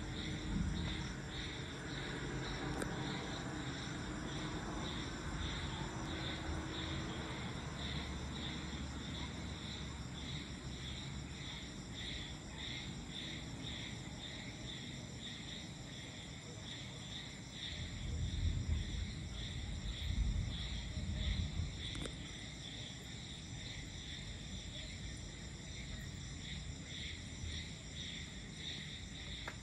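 Night insects, crickets, chirping in a steady pulsing chorus. A deep rumble of distant thunder swells up about two-thirds of the way through, with a few heavier rolls, then fades.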